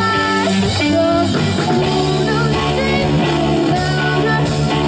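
Live rock band playing: electric guitar, bass guitar and drum kit, with a singer's voice.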